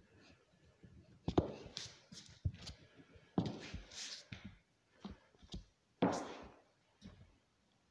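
Uneven walking on crutches over a bare wooden floor: a string of knocks and thuds from a high-heeled pump's heel and the crutch tips, with a sandal scuffing between steps. The loudest knock comes about six seconds in.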